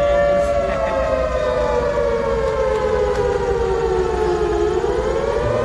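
Civil-defence air-raid warning siren wailing for a mock drill: its pitch holds steady, then falls slowly over about four seconds and starts rising again near the end.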